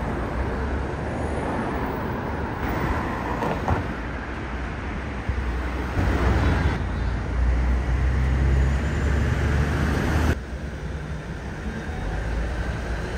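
Road traffic noise from cars passing on a town street, a steady rumbling hiss. It gets louder about six seconds in and drops suddenly about ten seconds in.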